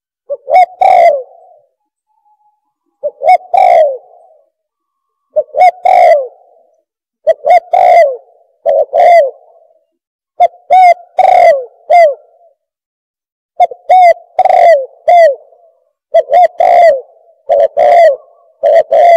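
Spotted dove (bato-bato) cooing: short phrases of about three coos, repeated every two seconds or so, coming closer together near the end.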